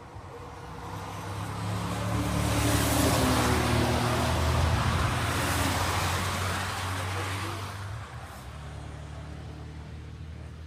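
A racing saloon car's engine passing by on the circuit: it grows louder as the car approaches, is loudest for a few seconds in the middle, then fades as the car pulls away, with a steadier engine drone from other cars on track behind it.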